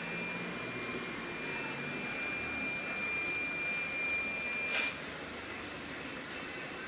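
Hakura Seiki H-70v single-slice bread slicer running: a steady mechanical hum with a thin high whine that cuts off with a click about five seconds in.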